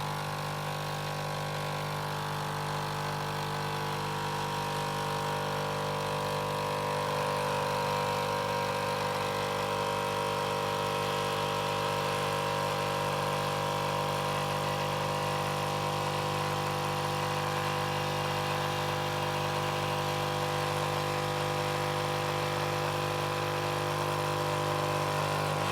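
Krups Nescafé Dolce Gusto pod machine's pump running steadily as it brews a milk pod into the cup: a continuous buzzing hum with hissing, getting a little louder over the first several seconds.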